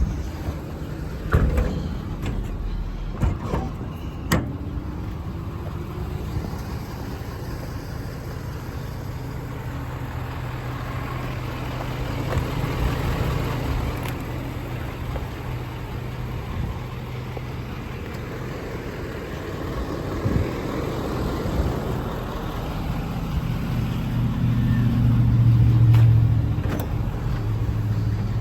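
Gas-engine air compressor on a service truck's body running steadily, with a few knocks in the first few seconds; it grows louder about 24 seconds in.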